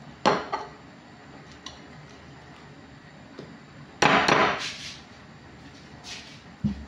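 A metal wire whisk clinking against a glass mixing bowl while whisking cake batter: two sharp clinks just after the start, then a louder rattling stretch of quick strikes about four seconds in. A dull thump comes near the end.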